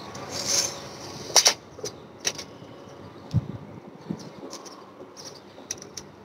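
Close handling noise of a slingshot band set and a tape measure: a short rustle, then scattered sharp clicks and taps, loudest a double click about a second and a half in, and a dull thump a couple of seconds later.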